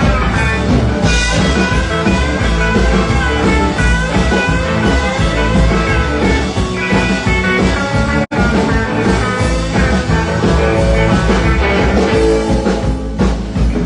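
Rock band playing live. The sound drops out for an instant about eight seconds in.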